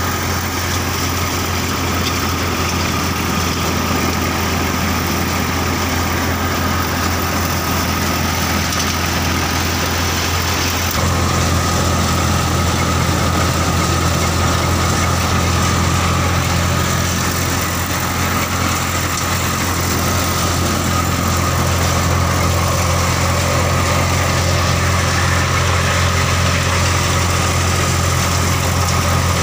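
Massey Ferguson 1035 tractor's three-cylinder diesel engine running steadily under load, belt-driving a threshing machine that is threshing mustard: a loud, even mechanical drone with a deep hum.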